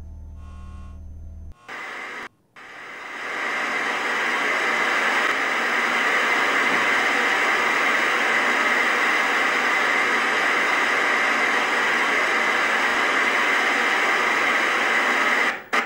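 A low electrical hum with a pulsing edge stops about a second and a half in. After a short break, loud steady static hiss fades up over a second or two, holds, and cuts off near the end.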